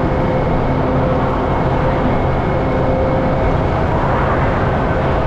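Heavy truck's diesel engine running steadily, a constant drone with a steady hum over it.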